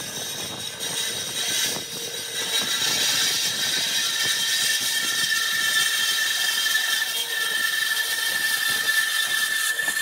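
Band saw running and cutting through a thick block of softwood: a steady high whine with the hiss of the blade in the wood, settling into a held tone from about four seconds in.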